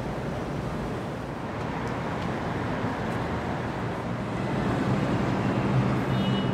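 Steady city street traffic noise. About four and a half seconds in, a low hum grows louder, and a short high tone sounds near the end.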